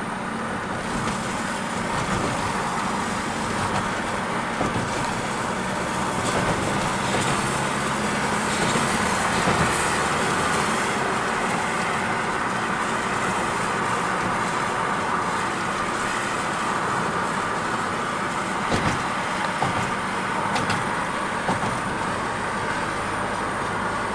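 Car driving along a road: steady engine and tyre noise, with a few light knocks about three-quarters of the way through.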